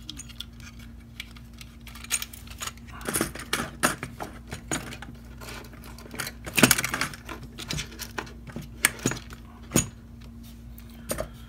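Small hard parts and plastic clicking and rattling in irregular bursts as a hand rummages through a box of electronic components. The loudest clatter comes about six and a half seconds in.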